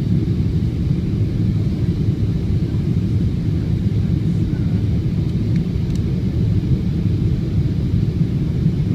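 Airliner cabin noise during landing: a steady, deep rumble of engines and airflow heard from inside the passenger cabin.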